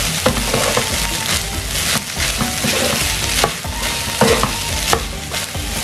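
Wooden spatula stirring and scraping raw basmati rice, minced meat and ground spices around a hot frying pan, the grains rustling over a steady sizzle, with short scrapes every half second or so.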